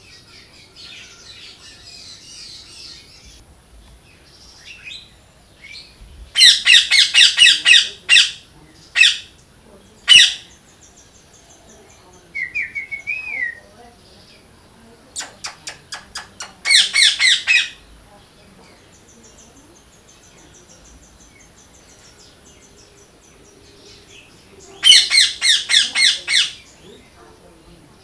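Green parakeet calling in loud bursts of rapid, harsh, repeated shrieks. The three longest bursts each last one to two seconds, with single shrieks and a shorter, quieter wavering call between them. Faint high twittering is heard in the pauses.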